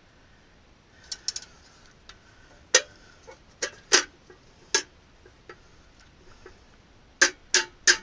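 Sharp, irregular clicks and clacks of small metal parts and hand tools being picked up and set down, with three in quick succession near the end.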